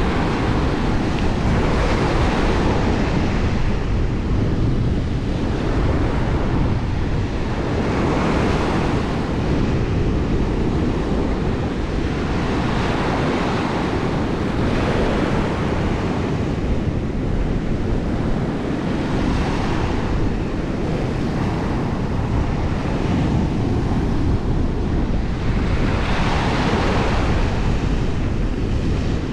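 Sea waves breaking and washing onto the shore, swelling in a wash every few seconds, the last one near the end the strongest, with wind rumbling on the microphone throughout.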